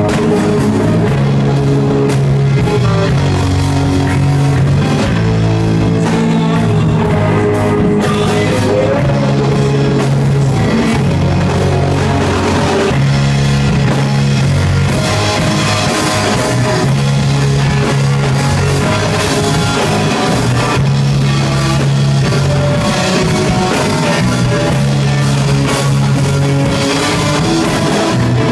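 A rock band playing live and loud, with drum kit and guitar over a moving bass line.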